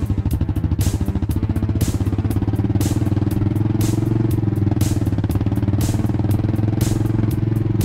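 Suzuki LS650 Savage's single-cylinder four-stroke engine running while the bike is ridden, its separate exhaust pulses merging into a steadier, stronger note as the revs rise about three seconds in.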